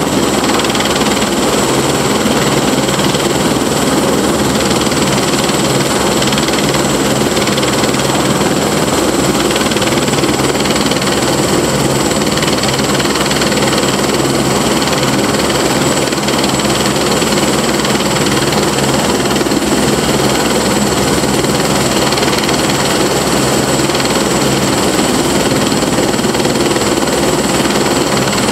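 Eurocopter AS350 Écureuil single-turbine helicopter running at ground idle with its rotor turning: a loud, steady turbine whine over the rotor noise, unchanging throughout.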